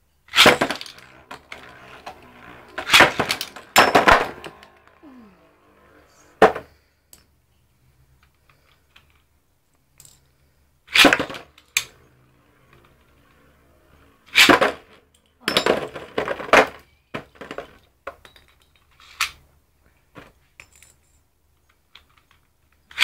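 Beyblade spinning tops clashing and clattering against each other and the stadium walls, in about eight sharp clattering bursts with quieter spinning stretches between them.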